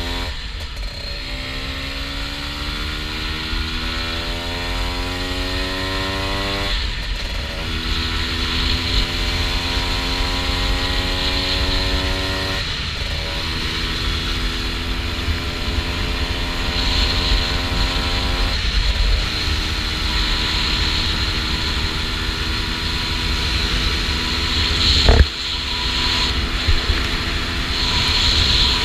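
Honda NSR 125's two-stroke single-cylinder engine accelerating hard through the gears: the pitch rises in each gear and drops at four upshifts, about a second, seven, thirteen and nineteen seconds in, then holds fairly steady at cruising speed. Wind rumbles and hisses on the mic, and a sharp loud thump comes about 25 seconds in.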